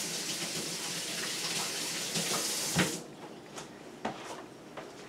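Kitchen tap running into the sink as a steady hiss, turned off about three seconds in. A single knock comes just before it stops, and a couple of light clunks follow.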